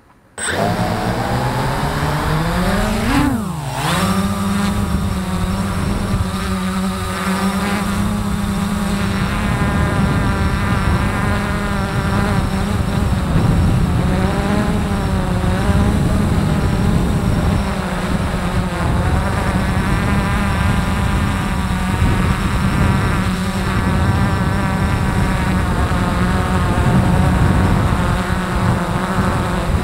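Quadcopter's electric motors and propellers spinning up abruptly about half a second in, rising in pitch as it lifts off, then a loud steady buzzing hover whose pitch wavers slightly, picked up by a camera mounted on the drone itself.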